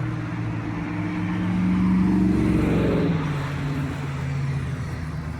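A motor vehicle drives close past through road traffic. Its engine note grows loudest about two seconds in, then drops in pitch and fades as it goes by.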